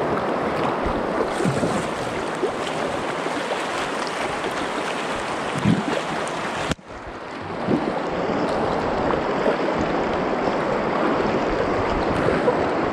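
Rushing, splashing river water from rapids around a small inflatable boat, with wind buffeting the microphone. The sound cuts out abruptly about halfway through, then returns at the same level.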